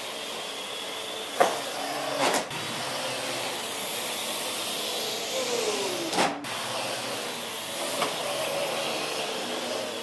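Parrot AR.Drone quadcopter hovering, its four rotors giving a steady whirring hiss. A few sharp knocks come through it, about a second and a half in, again near two and a half seconds, and around six seconds.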